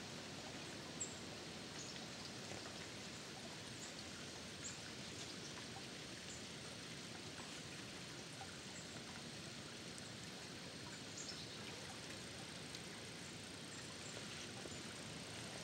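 Quiet outdoor ambience: a steady hiss with faint, scattered small ticks and a thin, steady high whine.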